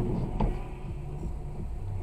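Car driving, a steady low rumble of engine and road noise, with a faint tick about half a second in.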